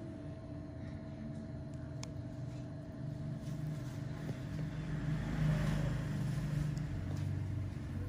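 Low, steady background rumble that swells louder about five to six seconds in, with a single sharp click about two seconds in.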